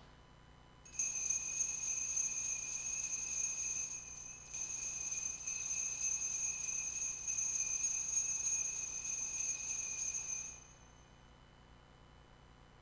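Altar bells (sanctus bells) shaken in a continuous high jingling ring, marking the elevation of the chalice at the consecration. It starts about a second in, breaks briefly about four seconds in, and stops about ten and a half seconds in.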